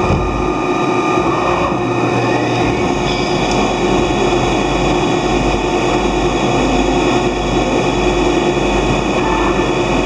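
Mori Seiki CNC lathe running a part program: a steady mechanical whine of several motor tones over a dense machining noise. Some of the tones change pitch about two to three seconds in.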